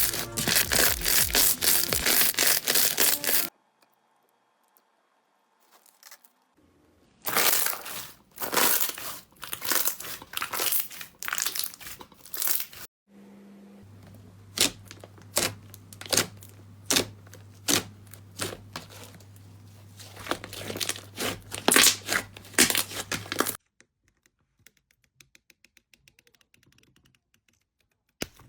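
Slime being squeezed and pressed by hand, making dense crackling and popping in several separate stretches with short silent gaps between them. A steady low hum runs under the longest stretch.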